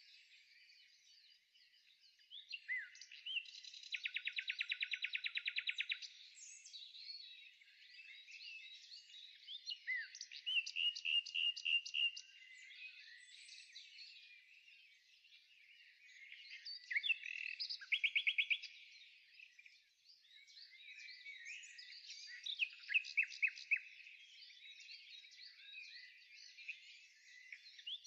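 Songbirds singing: a continuous mix of chirps and fast, rattling trills, several of the trills louder than the rest.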